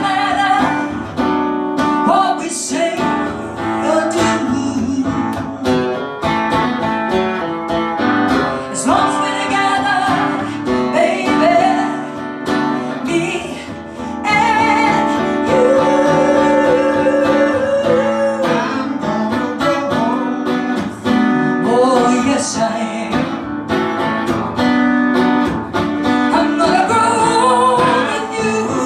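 Live country ballad: a woman singing a slow melody with long held notes, over acoustic guitar strumming.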